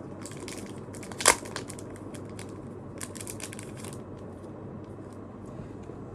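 Plastic packaging crinkling and crackling as it is handled, in short clusters, with one sharp loud click about a second in.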